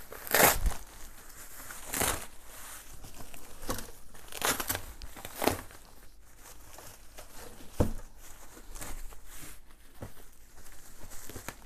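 Bubble wrap and plastic packing film crinkling and rustling as a parcel is unwrapped by hand, with irregular sharp crackles, the loudest about half a second in.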